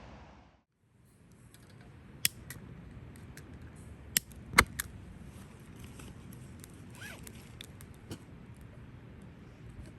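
Scattered clicks and knocks of small objects being handled, the loudest about four and a half seconds in.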